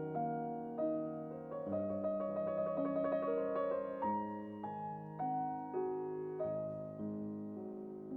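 Background piano music: gentle sustained chords changing about once a second, with a passage of quick repeated notes in the middle.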